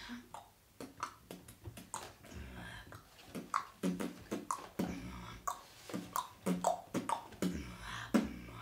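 A boy beatboxing: a rhythmic run of mouth-made kick-drum thumps and snare-like clicks and hisses, growing denser about halfway through.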